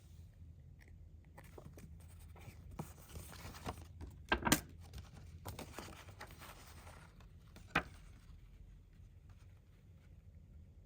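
CD packaging handled by hand: rustling and scraping of plastic and paper, with two sharp clicks about halfway through and another near the end, over a low steady hum.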